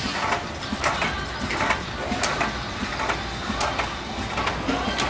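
Demtec EVO potting machine and its pot conveyor running: a steady mechanical hum with frequent irregular clacks and clatters, about two or three a second.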